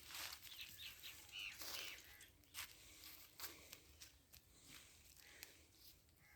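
Near silence: faint outdoor ambience with a few faint chirps in the first two seconds and scattered faint clicks.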